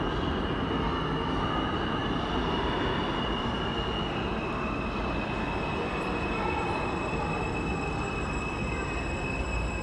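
Subway train approaching and entering the station: a steady rumble with a high-pitched, steady squeal of the wheels over it.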